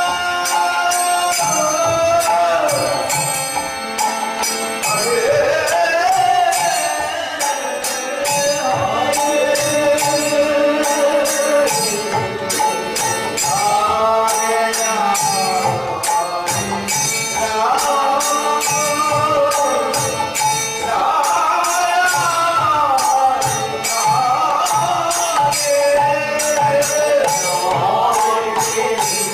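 Bengali devotional kirtan music: voices singing a melody over harmonium, with khol drums and small hand cymbals (kartal) striking a steady rhythm.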